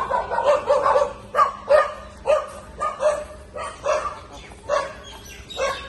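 A dog barking over and over in a steady run of short barks, about two to three a second.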